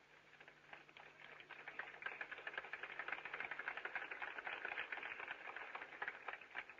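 Crowd applauding, building over the first few seconds and tailing off near the end, heard faintly on an old recording with a low steady hum in the first half.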